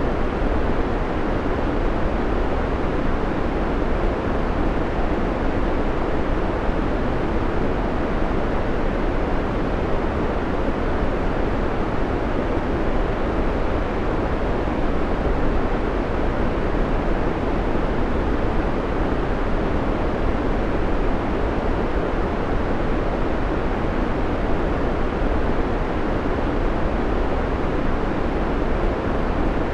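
Steady synthetic white noise: an even, unchanging hiss, fuller in the lows and mids than in the highs.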